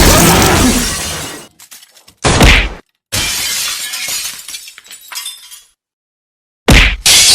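Glass-shattering sound effects played one after another. A crash fades out in the first second and a half, a short burst cuts off abruptly, and a longer crash fades away. After about a second of dead silence, a new crash hits near the end.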